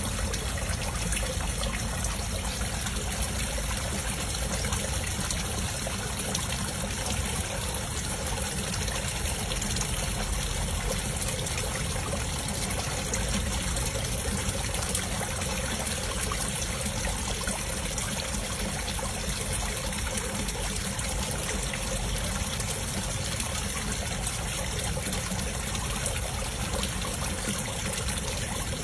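Water trickling steadily into a pond, an even rushing noise without a break.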